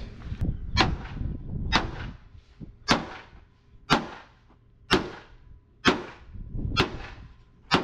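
Sledgehammer striking a Mercedes truck's steel chassis rail, about one blow a second, each a sharp bang with a short metallic ring. This is a bent chassis rail from an accident being hammered straight.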